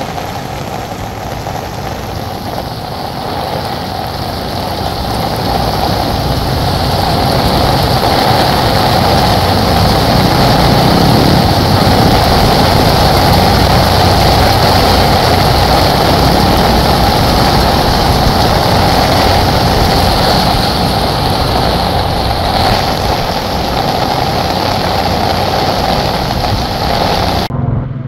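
Motorcycle and motorised tricycle engines running as they drive through floodwater, over a steady rush of heavy rain and splashing water.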